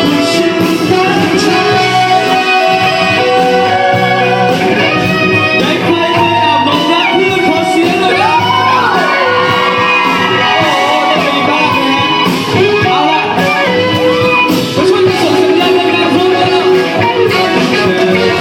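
A live band playing a pop song, with sung vocals over guitar and a steady backing.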